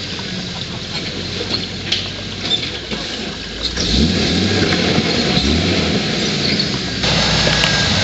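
Jeep YJ rock crawler's engine running at low revs. From about four seconds in it gets louder, with the revs rising and falling as the throttle is worked.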